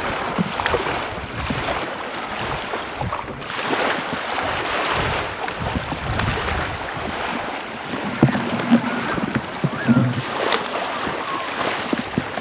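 Wind buffeting the microphone over splashing, rushing water on a lake, with occasional sharp knocks.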